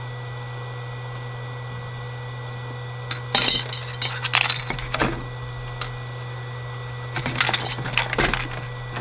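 Clinks, knocks and rattles of objects being handled on a workbench, in two bursts: a few seconds in and again near the end. A steady low hum runs underneath.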